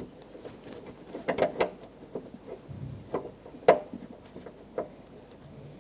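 Scattered light clicks and knocks, about half a dozen, the loudest a little past halfway, as a replacement exterior door handle is held in the door and its two mounting screws are started by hand.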